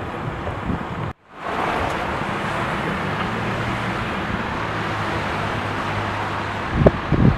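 Wind buffeting the microphone over steady road and traffic noise, with a faint low engine hum in the middle. Near the end the wind turns to heavy low thumping on the microphone.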